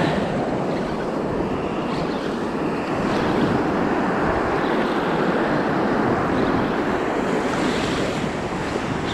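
Ocean surf washing in at the shoreline, a steady rush, with wind buffeting the microphone.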